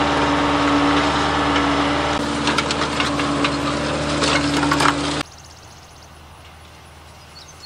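Tractor engine running steadily while a disc harrow cuts through clay soil. From about two seconds in, the discs add crackling and crunching as they break up clods. The sound cuts off suddenly about five seconds in, leaving a quiet outdoor background with a few faint bird chirps near the end.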